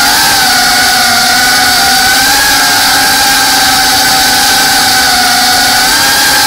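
FPV drone's brushless motors and propellers whining steadily, the pitch wavering slightly with throttle changes, picked up close by the onboard action camera.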